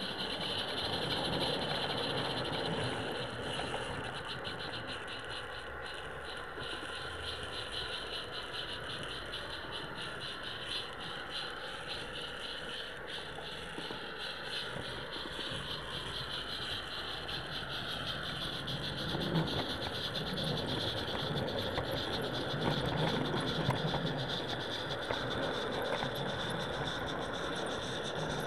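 Roundhouse Karen, a small gas-fired live-steam garden railway locomotive, running along the track: a steady hiss with a constant rattle and fast clicking of wheels and rolling stock on a rough ride.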